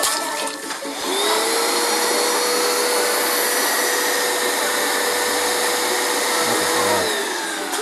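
Hoover upright carpet cleaner's motor starting up about a second in with a rising whine, running steadily, then winding down near the end.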